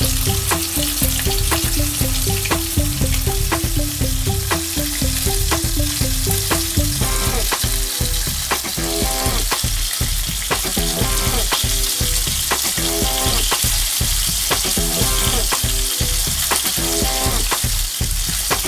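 Yellowfin tuna pieces and apple slices sizzling steadily in hot oil in a frying pan, with a fork turning the fish partway through. Background music with a steady beat plays underneath.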